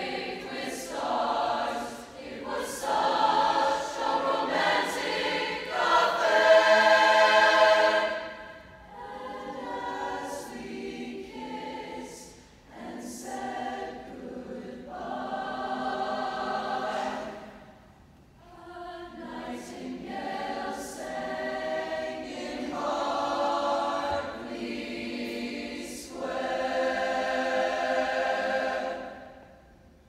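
Mixed-voice choir singing in sustained phrases, swelling to its loudest about seven seconds in, then continuing more softly with brief breaks between phrases.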